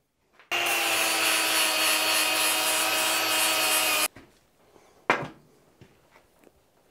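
Milwaukee M18 cordless angle grinder with a wire wheel running against a small hardened steel anvil, cleaning it up to a shine. It starts about half a second in and cuts off suddenly about three and a half seconds later. A single sharp knock follows about a second after that.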